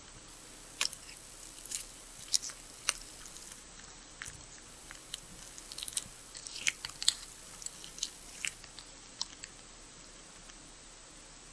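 Metal spoon clinking and scraping against a glass dessert bowl as thick overnight oatmeal is stirred and scooped, giving irregular sharp clinks that come thickest in the middle.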